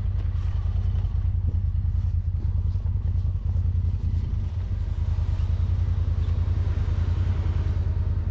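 Side-by-side UTV engine running at a steady speed, a low, even drone with a rapid pulse.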